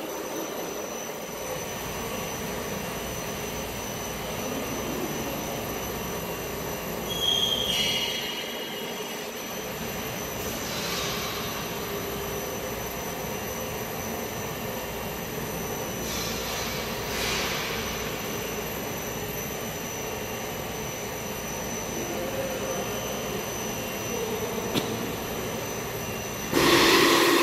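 Steady hum and hiss of running dairy processing machinery in a cheese plant, with a faint constant high whine, a few short hisses, and a louder burst of sound near the end.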